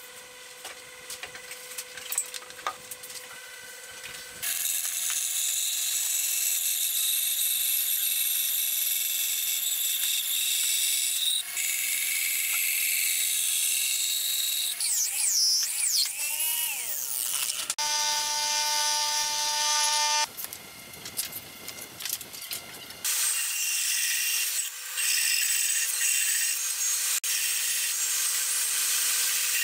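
Power tools running on wood: an angle grinder with a sanding pad, then a bandsaw cutting through boards. The sound changes abruptly several times, with a whine sliding up and down about halfway through.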